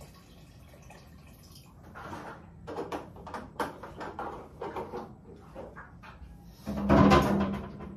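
Large plastic water jug being lifted and carried about, with a run of knocks and bumps, and one heavy hollow bump about seven seconds in.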